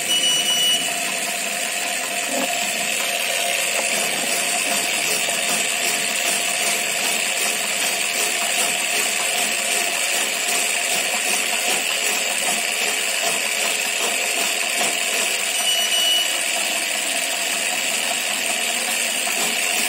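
Cotton wick cutter machine running steadily, feeding and cutting cotton into a batch of wicks, with an even mechanical noise throughout. Two short high beeps sound, one at the start and one about 16 seconds in.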